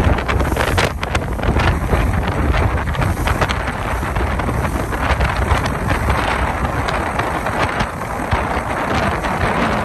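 Steady wind buffeting the microphone on a moving ferry, mixed with the boat's running noise as a constant low rumble.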